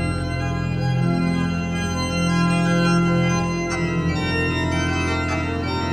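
Two-manual digital church organ played in sustained full chords over a deep held bass, the harmony shifting every second or so.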